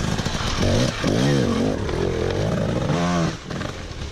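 Enduro dirt bike engine being ridden hard, revving up and falling back twice over a rough, clattering background of engine and terrain noise.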